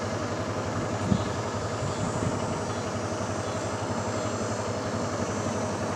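A steady engine drone with a fast, even low pulsing, with a faint thump about a second in. Right at the end comes a single sharp crack of a bat hitting the ball.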